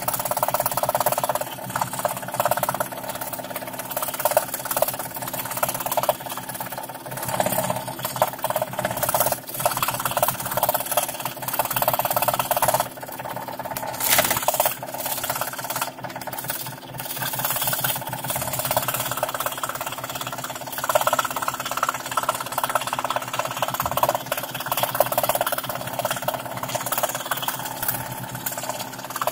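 Scroll saw running, its fine reciprocating blade cutting plywood fretwork: a steady motor hum and blade rattle, louder and softer by turns as the cut goes.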